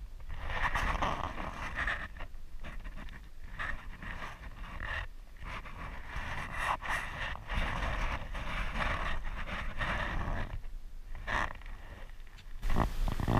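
Spinning reel being cranked to wind in fishing line, a steady whir that stops briefly twice and for longer near the end.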